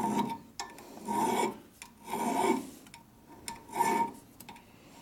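Hand file rasping across a metal part in four slow, even strokes, about one a second.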